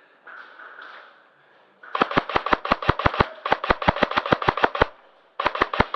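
Airsoft gun firing a rapid string of sharp shots, about seven a second, for roughly three seconds. It stops briefly, then fires three more shots near the end.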